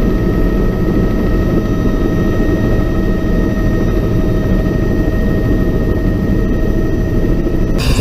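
Aircraft engine running steadily: a loud low rumble with several steady whining tones above it. Just before the end the sound changes abruptly and a brighter hiss comes in.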